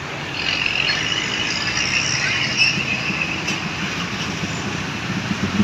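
Road traffic with a large vehicle, a bus, passing by, its running noise joined by a high rushing noise from about half a second in that fades after about three seconds.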